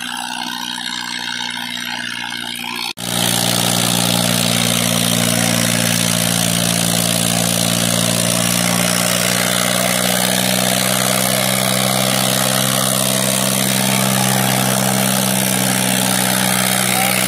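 Farmtrac 60 tractor's diesel engine running hard at steady revs under heavy load, pulling two disc harrows through soil. The sound drops out briefly about three seconds in, then comes back much louder and holds steady.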